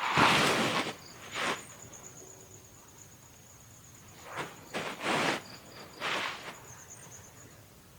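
Insects chirping in a thin, steady high trill, with five short rustling noises: a longer one at the start, one about a second and a half in, and three together around five to six and a half seconds in.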